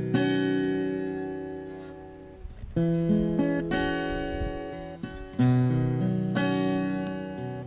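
Steel-string cutaway acoustic guitar strummed, with about five chords struck one after another, each left to ring and fade before the next.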